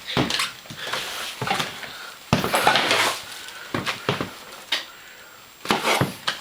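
Irregular metal clattering and knocking as the gas dryer's sheet-metal cabinet and front panel are handled, loudest about two to three seconds in.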